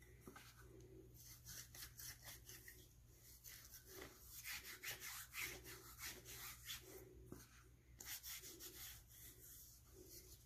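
Faint, repeated gritty rubbing strokes of a lemon half coated in baking soda scrubbed over wet skin on a foot, exfoliating dead skin.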